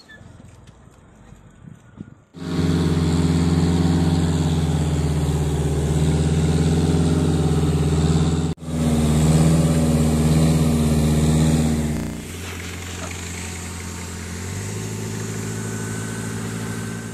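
A motor vehicle's engine running steadily and loudly, a steady drone, starting about two seconds in after a quieter stretch. It breaks off briefly past the middle, then drops to a quieter, different drone that shifts again near the end.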